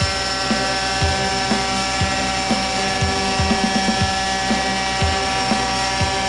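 Radio-controlled model helicopter hovering, its small nitro engine and rotors running with a steady high-pitched whine, and irregular low thumps underneath.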